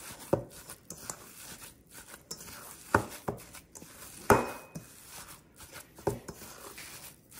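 Hands kneading and squishing ground pork and beef meatball mixture in a stainless steel bowl, with a few sharp knocks against the metal bowl, the loudest about three and four seconds in.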